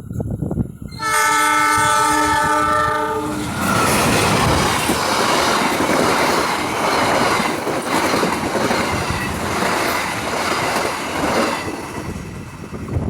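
A diesel-electric locomotive's multi-tone air horn blows one chord for about two and a half seconds. The train then passes close by at speed, with loud wheel-on-rail clatter for about eight seconds that fades near the end.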